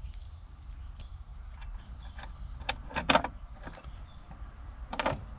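Scattered light clicks and taps of a bent-wire pin pusher probing a glove box lock cylinder, pressing on its locking pin. The loudest clicks come in a cluster about three seconds in and again near the end.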